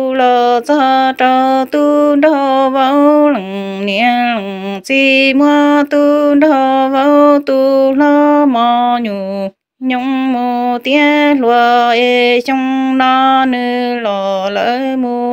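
Hmong kwv txhiaj sung poetry: a single voice singing in long held, wavering notes, pausing briefly for breath about nine and a half seconds in.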